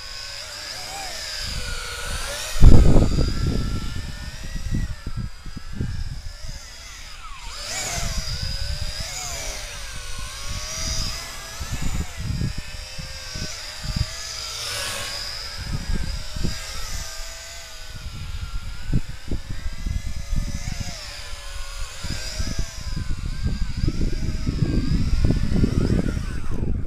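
Tarantula X6 quadcopter's four motors and propellers whining as it flies, the pitch wavering up and down with the throttle, over gusty rumbles of wind buffeting the microphone, the loudest about three seconds in. The motor whine stops just before the end as the drone sits landed.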